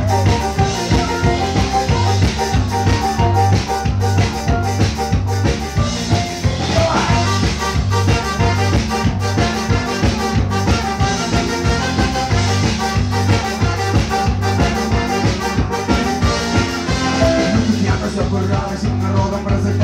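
Live ska-punk band playing, with drums, bass, electric guitar and keyboard over a steady driving beat.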